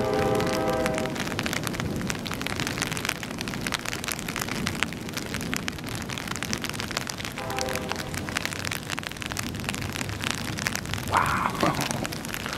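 Heavy rain falling on an umbrella held overhead: a dense, steady patter of drops. Short pitched sounds rise over it at the start, about two-thirds through and, loudest, near the end.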